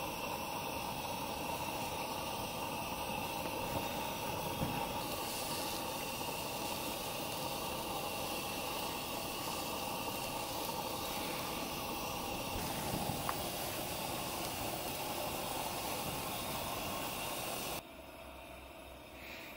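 Steady hiss of a gas camp-stove burner under a takoyaki plate, with the batter sizzling on the hot plate and a couple of light taps. The hiss cuts off sharply near the end, leaving a quieter background.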